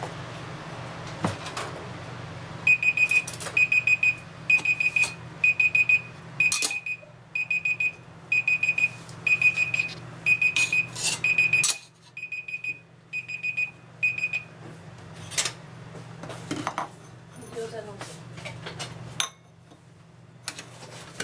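Tablet countdown-timer alarm beeping in a quick, evenly repeated run of high beeps for about twelve seconds: the eggs' time in the hot water is up. Then a metal spoon clinks against the stainless steel pot as the eggs are scooped out.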